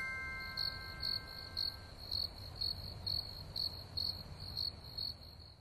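A cricket chirping in a steady rhythm, about two short high chirps a second, over a low hum. In the first two seconds the fading tones of a chime ring out beneath it.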